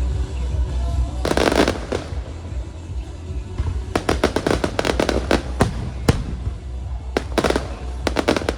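Fireworks going off: sharp bangs and crackling volleys at irregular intervals, with a dense cluster a little over a second in and rapid runs of bursts from about four seconds on, over a steady low rumble.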